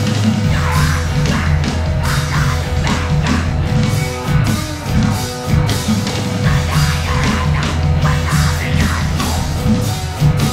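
Live thrash metal band playing loudly: distorted electric guitar, bass and drum kit with frequent cymbal and drum hits.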